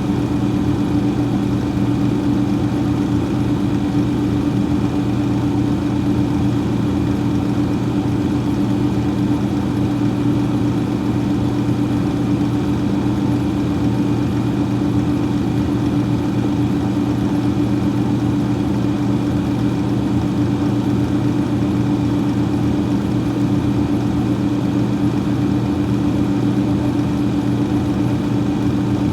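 Freezer fan running with a steady, unchanging hum and a low whir of moving air.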